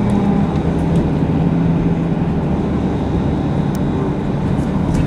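Mercedes-Benz OC500LE city bus heard from inside the passenger cabin: a steady low diesel engine and drivetrain drone with road noise.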